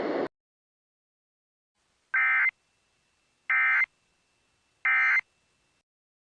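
Three short, identical bursts of EAS SAME digital data tones, each under half a second and about a second apart: the end-of-message code that closes an emergency alert. A background hiss cuts off just at the start.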